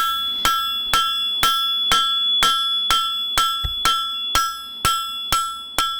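Hand hammer striking hot steel bar stock on an anvil, a steady rhythm of about two blows a second. Each blow rings with a clear, lingering metallic tone from the anvil.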